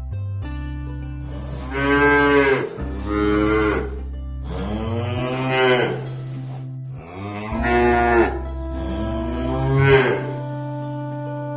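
A cat meowing five times in long, drawn-out meows that rise and fall in pitch, over background music with steady low tones.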